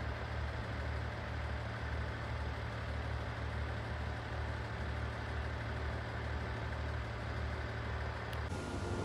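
AIZU Mount Express diesel railcar's engine idling with a steady, low pulsing hum. The hum's tone shifts abruptly near the end.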